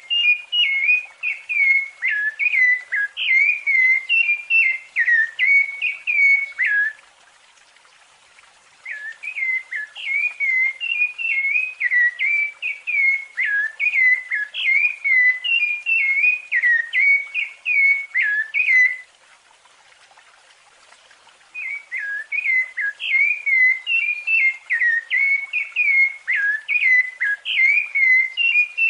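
Rufous-bellied thrush (sabiá-laranjeira) singing its fluted song: rapid runs of clear whistled notes, broken by two pauses of about two seconds, one about a quarter of the way in and one about two-thirds through.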